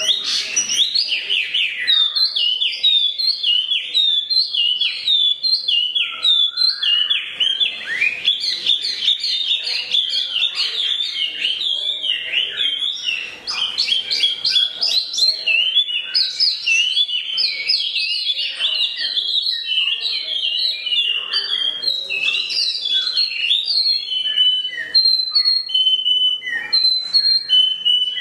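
A wambi songbird singing a fast, unbroken string of chirps, trills and whistles mixed with canary-style 'cililin' phrases, the kind of song used as a tutor recording for white-rumped shamas. Near the end the song thins to spaced single whistled notes.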